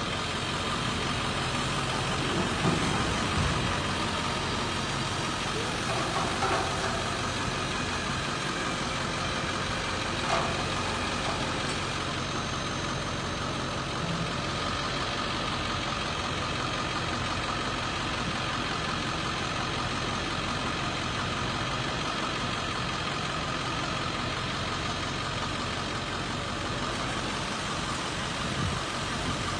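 Ford F-550 truck running steadily under load while its homemade roll-off hoist drags a dumpster up onto the bed, with a steady whine over the engine and a few short knocks and scrapes in the first ten seconds.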